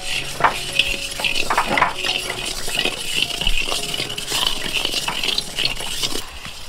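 Metal ladle stirring paddy rice grains as they dry-roast in a dark metal wok: irregular scrapes and clinks of the ladle on the pan, over a scratchy rustle of the grains.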